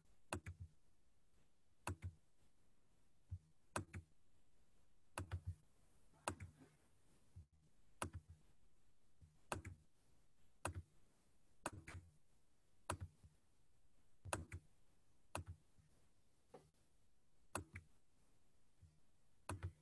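Computer mouse clicking: short sharp clicks, mostly in pairs or small clusters about a second apart, with near silence between. The pattern fits opening drop-down menus one after another and picking an entry in each.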